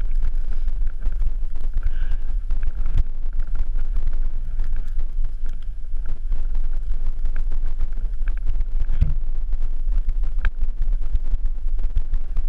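Wind buffeting an action camera's microphone in a loud, steady rumble, with scattered crunches and clicks of boots and trekking poles in snow.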